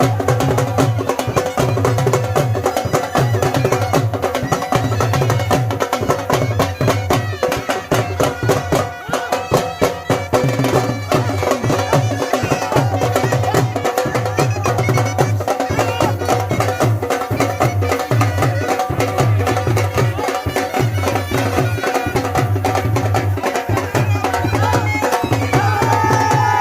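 Dhol and baja folk music: a dhol drum beats a steady, repeating rhythm under the droning melody of a reed wind instrument.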